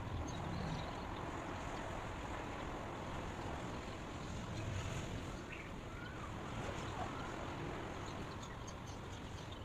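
Steady outdoor background noise, an even hiss with a low rumble, with a few faint bird chirps about halfway through.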